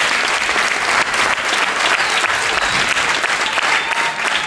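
Audience applauding steadily, a dense patter of many hands clapping, with a few faint voices mixed in.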